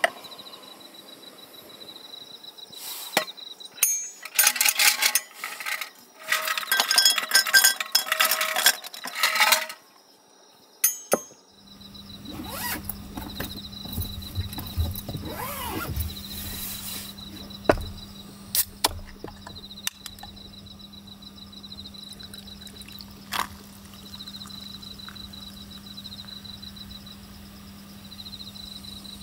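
Ice cubes clinking and clattering into a tall glass in quick runs. Later come a few sharp clicks, and a canned whiskey-and-cola is poured fizzing over the ice near the end. Insects chirp steadily in the background.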